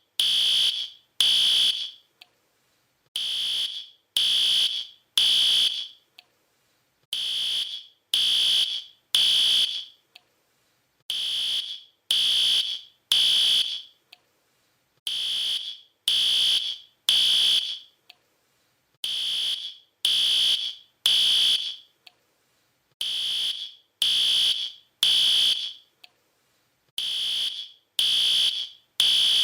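Fire alarm sounding the temporal-three evacuation pattern: three high beeps of about half a second each, then a pause of about a second and a half, repeating every four seconds.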